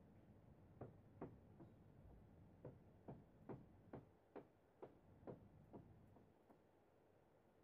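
Near silence with a run of faint, soft ticks, about two a second, that stop about six seconds in.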